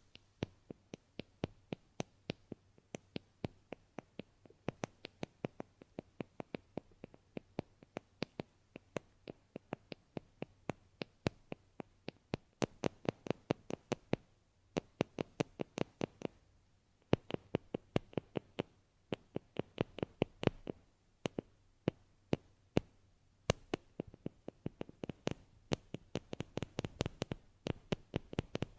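ASMR tapping: a long run of light, crisp taps, about four to five a second, with a couple of short pauses about halfway through.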